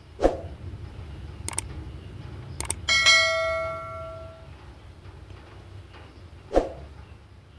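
Subscribe-button outro sound effects: a soft thump, two quick double clicks, then a bell notification ding that rings out for about a second and a half, and another thump near the end. A low steady hum runs underneath.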